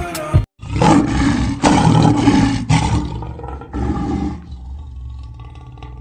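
Lions roaring: a series of rough, low roars, loudest in the first three seconds, with one more shortly after, then fainter.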